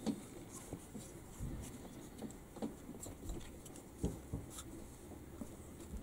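Faint, irregular taps and rustles of hands working a reel of solder wire and a soldering iron against the bench while soldering a fine coil wire, with a few sharper clicks.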